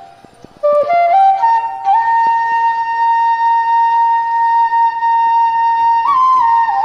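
Background music: a solo flute melody that comes in after a short pause, climbs in a few steps to one long held note of about four seconds, then steps down near the end.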